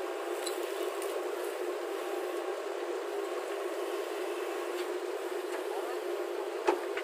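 Heavy diesel engine of earthmoving machinery running steadily, with a single sharp clank near the end.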